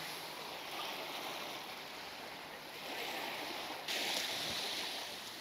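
Sea waves washing on the shore, a steady rushing hiss, with a brighter hiss setting in about four seconds in.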